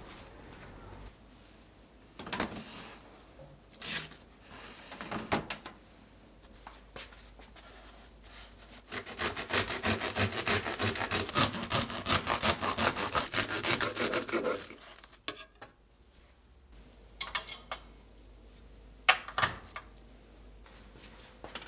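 Quick, rhythmic back-and-forth scrubbing strokes for about six seconds in the middle, with scattered knocks and clatter of cleaning work before and after.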